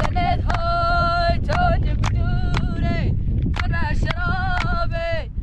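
A high voice singing a slow melody of long held notes that bend at their ends. Wind rumbles on the microphone underneath, with scattered sharp clicks.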